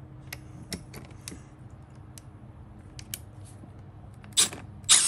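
Cordless drill with a Torx T45 bit on a gearbox bolt: a few faint clicks over a low steady hum, then near the end two short bursts as the drill is triggered to start backing the bolt out.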